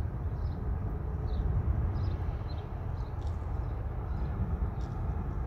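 Thunderstorm wind blowing across the microphone: a steady low rumble.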